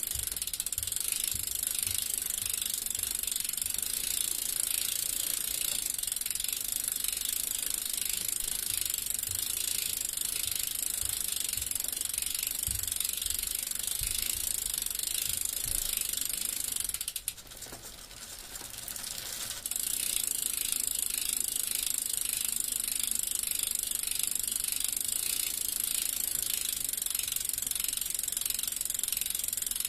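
Bicycle freewheel clicking: the rear hub's pawls ticking rapidly and evenly as the wheel coasts. The clicking drops away for a couple of seconds a little past halfway, then resumes.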